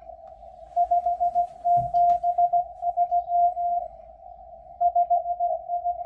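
Morse code from the M12 Russian numbers station received on a Yaesu FTdx10 shortwave transceiver: a single mid-pitched CW tone keyed in dots and dashes over faint static, sending groups of numbers. The tone starts under a second in and breaks off for about a second near four seconds in, between groups.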